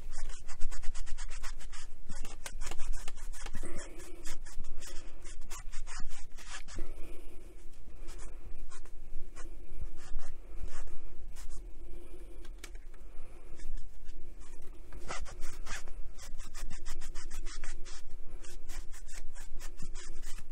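Cloth rubbing briskly over the end panel of a radio's case, polishing it in a rapid, continuous run of rubbing strokes.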